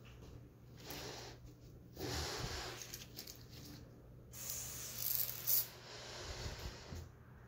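A person breathing close to the microphone: several breathy, hissing breaths, the loudest about five seconds in.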